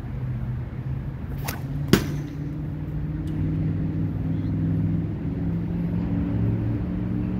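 A sling-thrown tennis ball strikes the target: one sharp smack about two seconds in, with a fainter one half a second before it. A steady low hum runs underneath.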